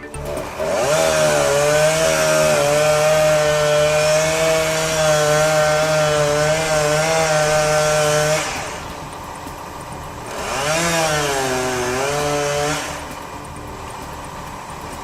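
Gas chainsaw at full throttle, cutting through a tree, for about eight seconds. It then drops to idle, revs up again briefly for about two seconds, and falls back to idle.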